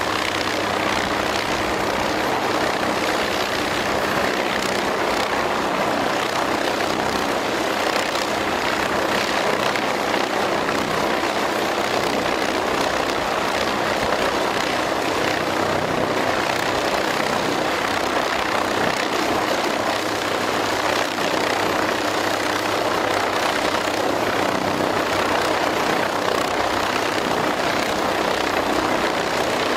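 MQ-8B Fire Scout unmanned helicopter hovering, its turboshaft engine and rotor making a steady, loud rushing noise with a low hum beneath.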